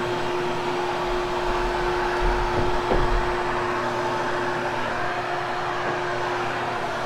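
Hoover HushTone upright vacuum cleaner running, a steady motor hum over an airflow hiss.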